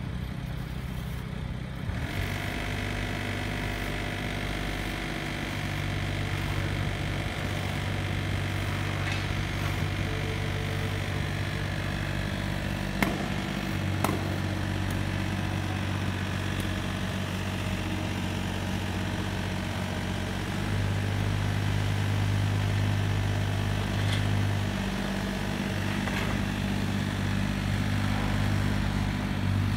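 Diesel engines of Kubota mini excavators running steadily, the engine note stepping up and down as the machines work and growing louder about two-thirds of the way through. Two sharp knocks about 13 seconds in, a second apart.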